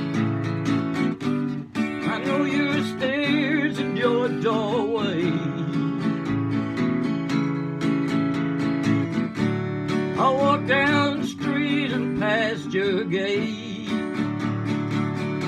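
Acoustic guitar strummed in a steady rhythm, with a wavering melody line without words rising over it twice, from about two seconds in and again from about ten seconds in.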